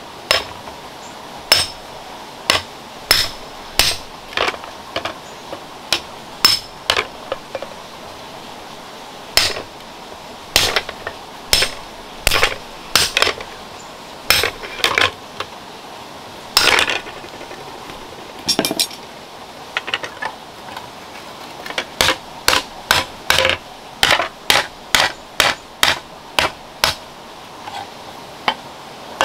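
Hand hammer striking a rod-handled punch held against a red-hot iron shovel blade on a stone anvil: sharp metallic blows with a short ring, coming in runs with brief pauses.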